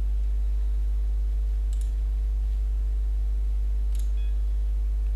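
Steady electrical mains hum with evenly spaced overtones, and two sharp computer mouse clicks, about two seconds in and again about four seconds in.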